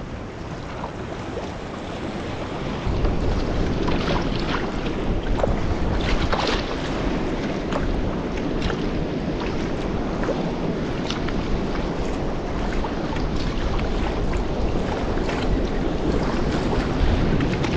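Choppy sea water sloshing around a sea kayak, with wind buffeting the microphone and occasional paddle splashes. It gets louder about three seconds in.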